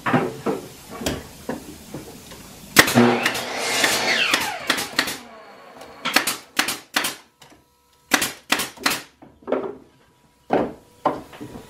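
Pneumatic 18-gauge brad nailer firing brads into pallet-wood boards, a series of sharp shots in quick runs of four or five from about six seconds in. About three seconds in there is a loud scraping, clattering noise lasting a couple of seconds.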